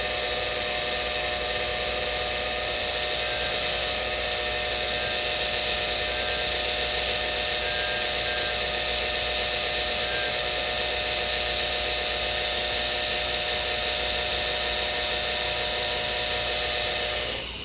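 Dental laboratory straight handpiece spinning a rubber finishing wheel against a gold bridge's interproximal connector: a steady motor whine with a high hiss from the wheel working the metal. It stops near the end.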